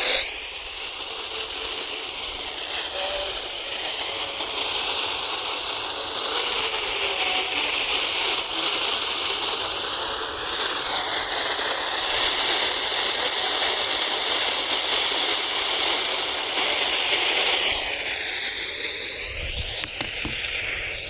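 Steady FM radio static hiss from a receiver tuned between stations, its tone shifting now and then as the tuning moves.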